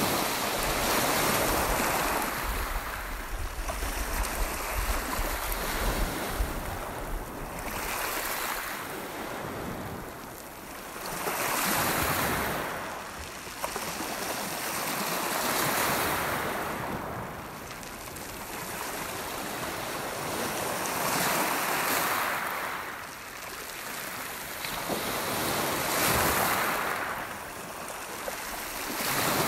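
Lake Superior waves breaking and washing up a pebble beach, the surf swelling and fading every four to five seconds. Wind buffets the microphone with a low rumble in the first several seconds.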